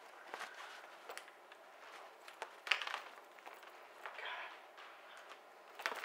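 Quiet handling noise: scattered light rustles and clicks of papers and a portfolio being shuffled, the loudest a brief rustle about two and a half seconds in.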